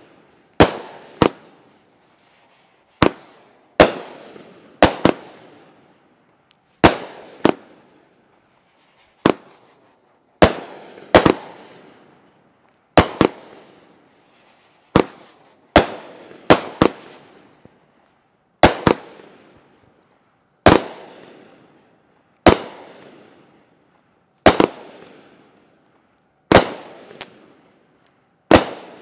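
A 500 gram multi-shot firework cake firing: sharp bangs of shells bursting, about one to two seconds apart and sometimes in quick pairs, each trailing off in a short fading echo.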